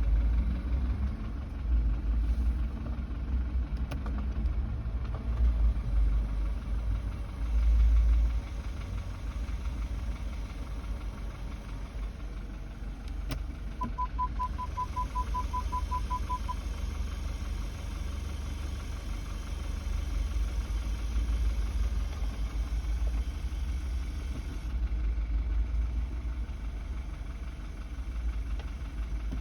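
BMW F30 328i's 2.0-litre turbo four-cylinder running with a deep low rumble, the strange noise the owner puts down to the gearbox and says appears after long driving. About 14 seconds in, a quick run of about a dozen short high beeps lasts under three seconds.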